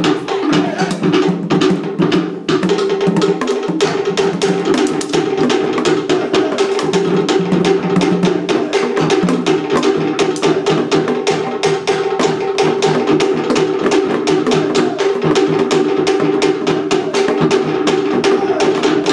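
Pacific Island drumming: sticks beating a fast, even rhythm on a wooden log drum and skin-topped drums, stopping suddenly at the very end.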